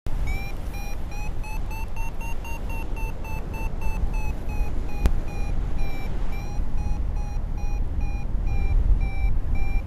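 Paragliding variometer beeping its climb tone, a steady train of short beeps about three to four a second, slightly rising in pitch and then easing off, the sign that the glider is climbing in lift. Wind rumbles on the microphone underneath, with one sharp click about five seconds in.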